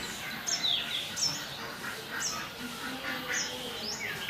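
Small birds chirping, with short high chirps that sweep down in pitch, two or three each second.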